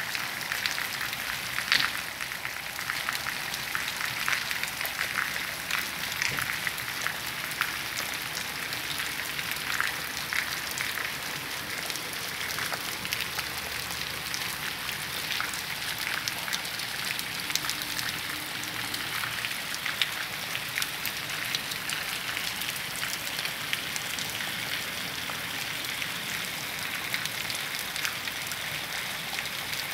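Steady rain falling on a wet paved street, a constant hiss full of fine drop patter.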